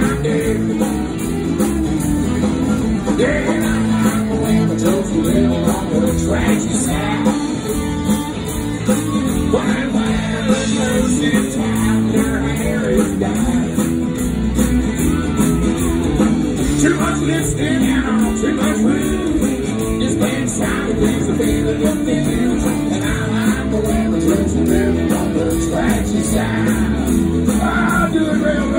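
A live country band playing, with acoustic and electric guitars.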